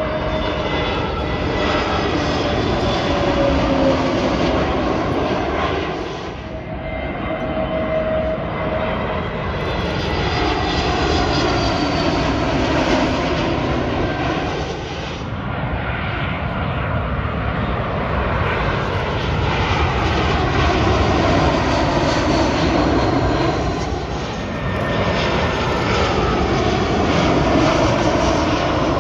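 Narrow-body twin-jet airliners on final approach, wheels down, passing low overhead one after another. Each one is a swelling jet rumble and whine whose pitch sweeps as it goes by, then fades briefly before the next.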